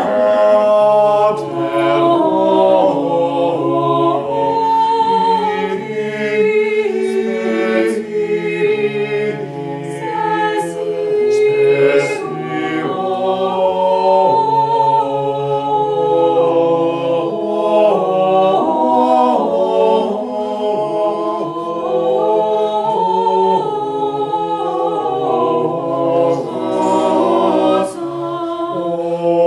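Four mixed voices, three men and a woman, singing a cappella in parts: a 15th-century English polyphonic hymn to the Virgin Mary, in long held notes that move step by step.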